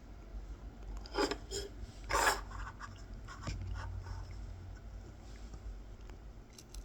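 Kolrosing knife incising fine lines into a wooden coffee scoop: a few short, scratchy cutting strokes, the loudest a little over two seconds in.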